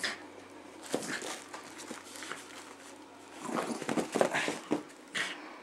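A dog playing with a plush toy on carpet: scattered short noises from the dog and the toy, busiest from about three and a half to five seconds in.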